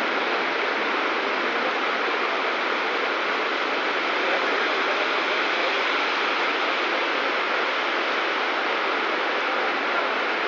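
Heavy rain pouring steadily onto a flooded street, an even hiss with no break.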